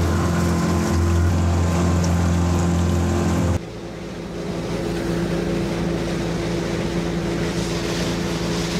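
Small boat's outboard motor running steadily under way, with water rushing along the hull. About three and a half seconds in the sound drops suddenly to a quieter, lighter engine hum.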